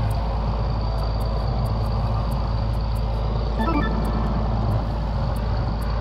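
Fishing boat's engine running with a steady low drone, and a brief squeak about three and a half seconds in.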